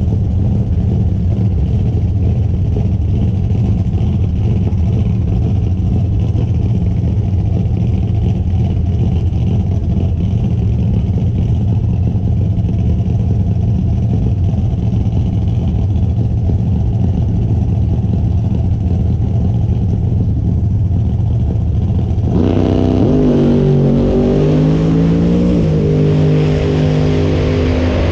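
Drag car's engine running steadily, then accelerating hard about 22 seconds in: the pitch climbs, drops back once at a gear change, and holds high near the end.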